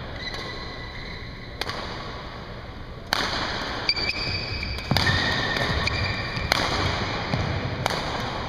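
Badminton rackets striking a shuttlecock during a doubles rally: sharp cracks about every second and a half, with short squeaks of court shoes on the floor between them. The hits echo around the gym hall.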